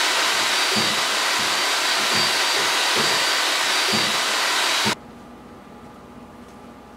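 Large power drill running steadily with a paddle mixer churning cake batter in a bucket, with faint low knocks from the paddle in the bucket; it stops abruptly about five seconds in, leaving only a faint hum.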